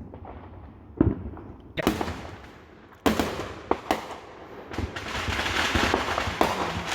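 Neighbourhood consumer fireworks going off: sharp bangs about a second in, just before two seconds and at three seconds, then a swelling spray of rapid crackling pops toward the end.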